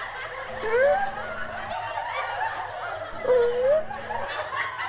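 Sitcom laugh track: an audience chuckling and laughing.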